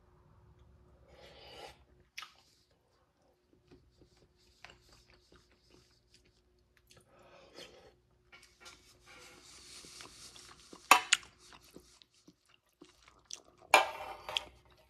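A person chewing a hot spoonful of shepherd's pie: scattered soft mouth sounds, a short hiss near the middle, and two sharp clicks later on, the louder one near the end.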